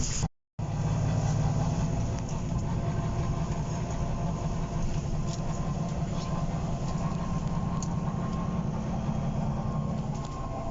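Diesel engine of a Volvo B9TL double-decker bus, a six-cylinder Volvo D9B, running steadily as heard from inside the bus, with a low, even hum. The sound cuts out for a moment just after the start, and the engine note drops a little near the end.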